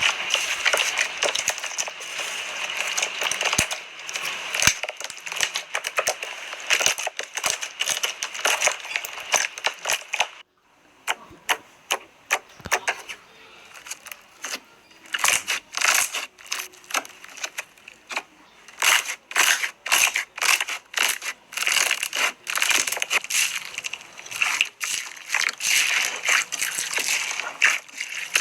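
Slime being squeezed and pressed by hand, giving rapid sticky clicks, pops and crackles. The sound breaks off briefly about ten seconds in, then the clicking resumes, sparser at first and denser again later.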